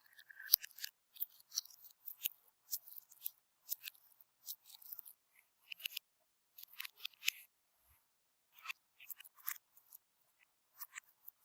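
Crunchy slime being squeezed and worked by hand, giving irregular crisp crackles and clicks, with one sharp click about half a second in.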